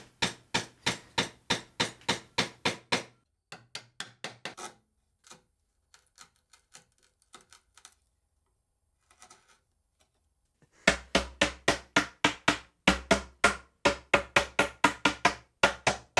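Mallet blows on a bench chisel, chopping dovetail-socket waste in a walnut drawer front: a fast run of sharp knocks, about four a second, for the first three seconds. Then several seconds of faint ticks and scrapes as the chisel pares by hand. From about eleven seconds in, a brass-headed mallet strikes again in a louder, deeper run of blows at the same pace.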